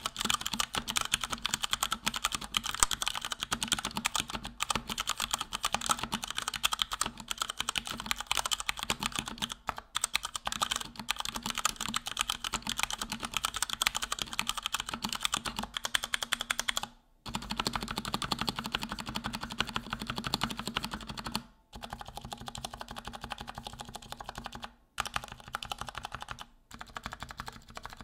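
Fast typing on a Durgod Venus 60% mechanical keyboard with Cherry MX Brown switches, thick PBT double-shot keycaps and an aluminum plate: a rapid, steady clatter of keystrokes, broken by a few short pauses in the second half.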